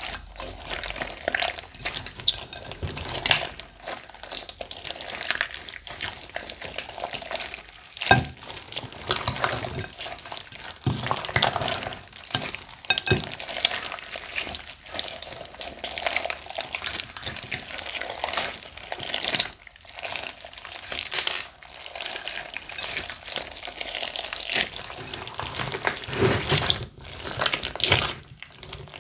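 Slime being mixed and worked by hand, a continuous run of wet, sticky squelches with many small crackles and pops.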